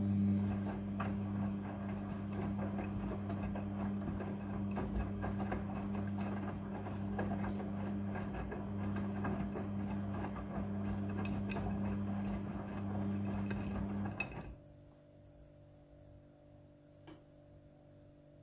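Front-loading washing machine in its wash (scrubbing) phase: the drum motor hums steadily while the wet load tumbles inside. The motor stops abruptly about 14 seconds in, leaving a faint hum.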